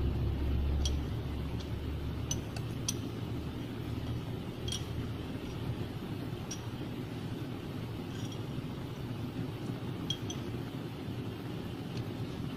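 Light metallic clinks, scattered every second or two, of a spanner working on a diesel fuel injection pump while its timing is set. Under them runs a steady low hum.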